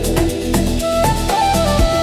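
Afro house music: an instrumental passage with a steady drum beat under heavy bass and a line of held melodic notes that steps higher about a second in.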